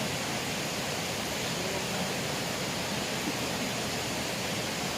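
Steady rush of a small river's flowing water, an even hiss with no breaks.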